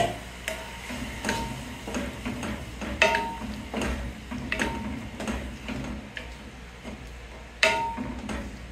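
A spoon stirring in a cooking pot, clinking and knocking against its side in irregular strokes, each with a short ring. The loudest knocks come about three seconds in and near the end.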